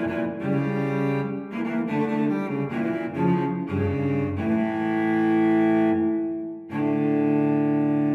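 Background music: a solo cello playing a string of short notes, then long held notes from about halfway, broken briefly near the end before another held note.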